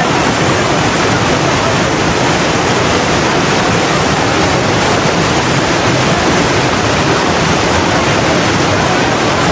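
Fast white-water river rushing over rocks, a loud, steady, unbroken wash of water noise.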